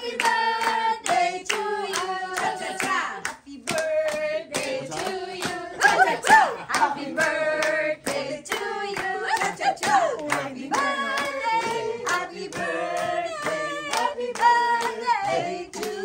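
A group of people singing a birthday song together, with hand clapping in time to the song.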